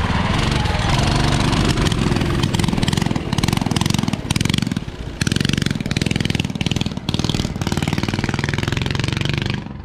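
Small single-cylinder mini bike engines revving hard under full throttle as the bikes pull away in a drag race. The engine sound is loud with a rapid, even firing beat and eases briefly a couple of times.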